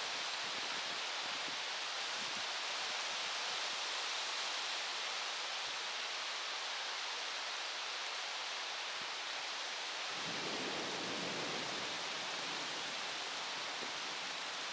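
Steady hiss of heavy rain falling during a thunderstorm. About ten seconds in, a deeper rushing layer joins the hiss.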